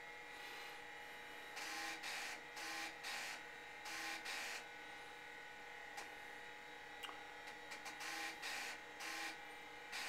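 IBM PS/2 Model 80's 3.5-inch floppy drive reading the reference diskette in several short bursts of about half a second each, over a steady machine hum, while the system's automatic configuration runs.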